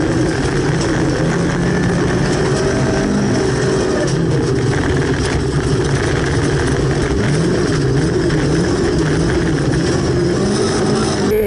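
Volvo 240 rally car's engine running hard at speed on a gravel stage, heard from inside the cabin over a steady rush of tyre and gravel noise. About two-thirds through, the revs drop and climb again several times as the driver lifts and shifts.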